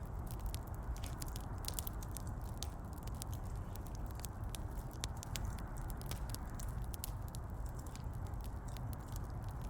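Wood fire crackling: many small, irregular pops and snaps over a steady low rumble of the burning logs.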